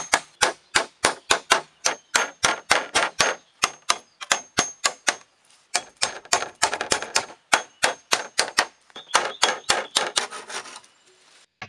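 A hatchet chopping into green bamboo poles: quick, sharp strikes at about three a second, with a short pause midway. The strikes stop shortly before the end.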